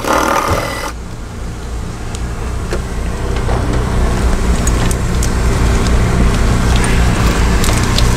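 A cordless power tool runs for about a second, backing out the 10 mm battery hold-down bolt. Then come scattered light clicks and clanks as the hold-down and battery are handled, over a steady low rumble that slowly grows louder.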